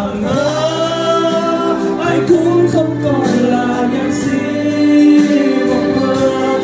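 A man singing through a handheld microphone, holding long notes, over steady low musical accompaniment.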